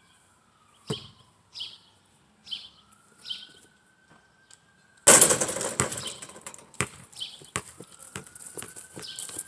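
Short bird chirps in the first half, with one thump about a second in. About five seconds in, a basketball lands on a portable hoop with a sudden loud crash and rattle, followed by a string of knocks and thuds as it comes down and bounces.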